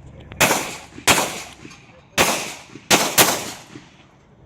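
Five pistol shots from an Open-division competition pistol, fired in a rapid stage string: two about half a second apart, a single shot, then a quick pair. Each crack is followed by a short echo.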